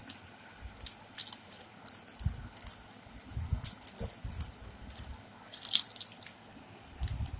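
Plastic wrapper of a chewing-gum packet crinkling in short, irregular crackles as it is snipped open with scissors and unwrapped, with a few soft handling bumps.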